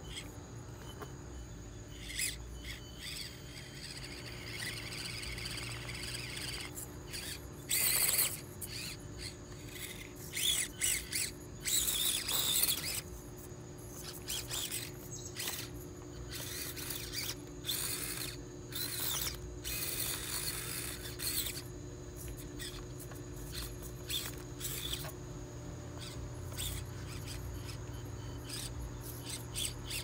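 Axial SCX24 micro RC crawler's small electric motor and drivetrain gears whining in irregular, high-pitched spurts as it is throttled over rocks and logs. The longest and loudest spurts come about a third of the way through.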